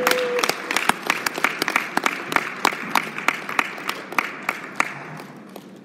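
Audience applauding; the clapping thins out and fades away toward the end.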